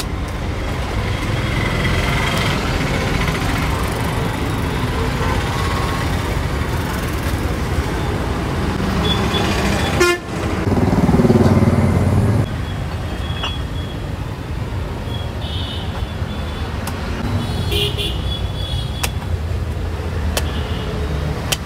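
Busy street traffic running steadily, with vehicle horns tooting now and then and a louder low rumble for about two seconds halfway through. A few sharp knocks near the end fit a machete chopping into a tender coconut's husk.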